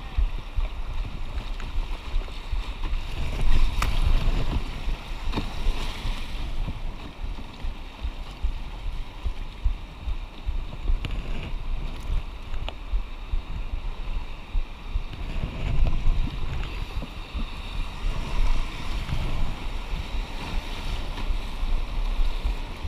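Whitewater rapids rushing and splashing around a paddled aluminum canoe, with wind rumbling on the microphone and a few sharp knocks about four to six seconds in.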